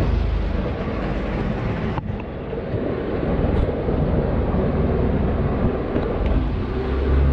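A fishing boat's engine running steadily, a continuous low drone.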